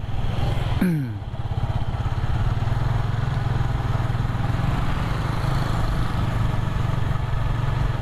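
Motorcycle engine running at a steady cruising speed while riding, with a brief drop in its note about a second in.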